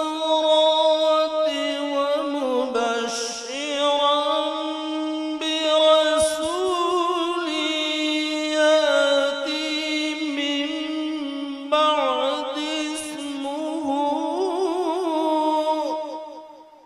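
A man reciting the Quran in a long, melodic chant (tilawat), holding and trilling the notes with heavy vibrato in one drawn-out phrase that fades away near the end.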